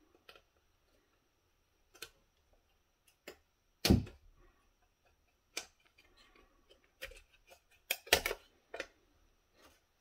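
Scattered clicks and knocks of a Dell D6000 USB-C docking station's circuit board being worked loose from its housing by hand. The loudest knock comes about four seconds in, and a quick cluster of clicks follows around eight seconds.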